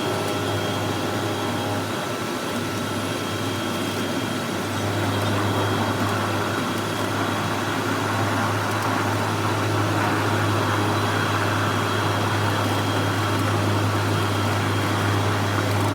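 Steady drone of a small propeller plane's engine heard from inside the cabin: a constant low hum under an even rushing noise, growing slightly louder about five seconds in.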